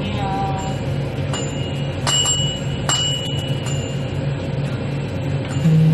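Steady low machine hum of the convenience store's equipment, with two faint clicks about two and three seconds in.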